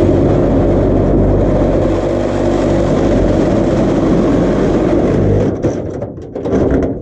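Engine running loudly and steadily, then faltering and going uneven near the end with a few knocks.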